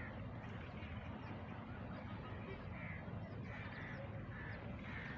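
Birds calling from the riverbank, short rough calls about once a second, over a steady low rumble.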